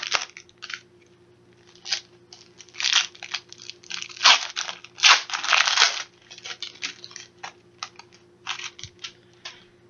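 A trading card pack wrapper being torn open and crinkled by hand, in irregular rustles and tears, the longest about five to six seconds in.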